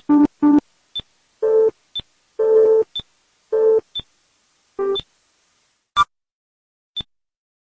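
Synthesized electronic blips, each marking one nuclear test on the time-lapse map: two lower blips at the start, four higher-pitched ones over the next few seconds, and a sharper, brighter blip about six seconds in. Under them a short click ticks once a second, the clock of the passing months.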